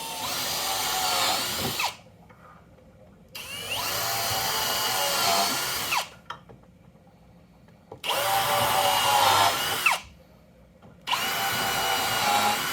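Power drill driving screws into wood in four runs of about two to three seconds each, the first already going at the start; the motor's pitch rises as it spins up and drops as it stops.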